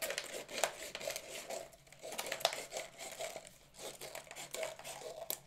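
Scissors snipping around a thin plastic seltzer bottle, with the plastic crinkling as it is cut and turned: a string of irregular sharp snips and crackles.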